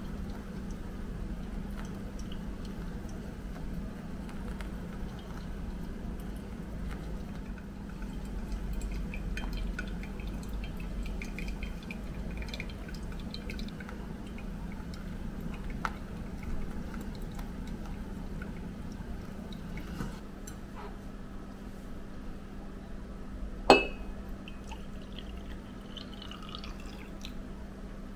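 Liquid pouring and dripping into a glass vessel during hand-made coffee, over a steady low hum, with one sharp glass clink about 24 seconds in.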